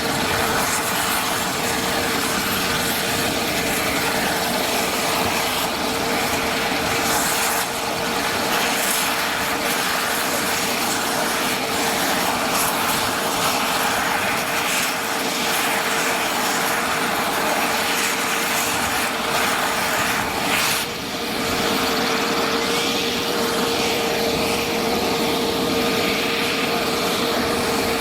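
Mi-28 attack helicopter running close by: the steady whine of its turboshaft engines and the whistle of its rotor blades, with a steady high hum running through it and a brief dip in level about three-quarters of the way through.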